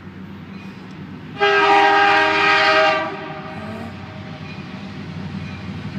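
Diesel locomotive air horn sounding one blast of about a second and a half, a chord of several notes, about a second and a half in. A steady low rumble of the passing train runs underneath.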